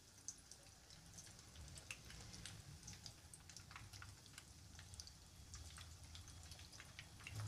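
Faint crackling and popping of chicken keema cutlets deep-frying in hot oil in a kadai: many small, scattered pops over a faint low hum.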